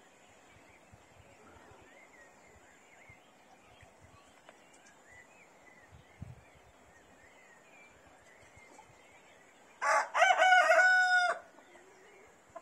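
A rooster crowing once, loud, about ten seconds in, for about a second and a half.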